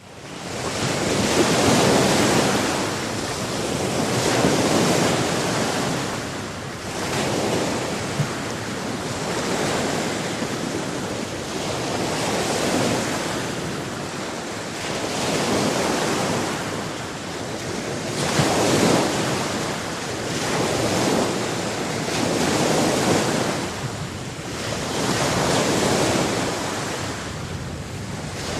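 Ocean waves breaking on a shore, a steady rush of surf that swells and ebbs every few seconds.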